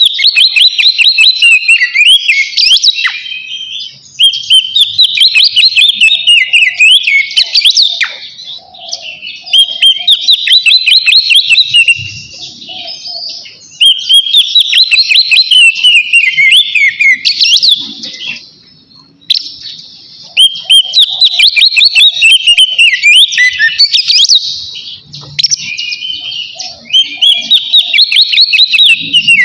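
Oriental magpie-robin (kacer) singing a loud, full-voiced 'ngeplong' song in repeated phrases of rapid whistles and trills, about six phrases each a few seconds long with short pauses between.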